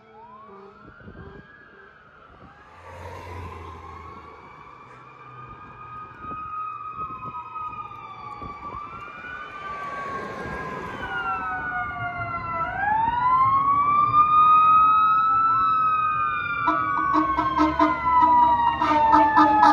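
Fire truck sirens wailing, several rising and falling tones overlapping and growing louder. Near the end a faster pulsing siren takes over above a steady low tone.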